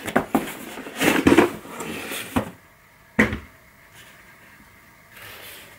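Cardboard box and the hard plastic case of a Parkside 20 V cordless compressor being handled as it is lifted out of its packaging. Scraping and rustling, then a few sharp knocks, the loudest about three seconds in.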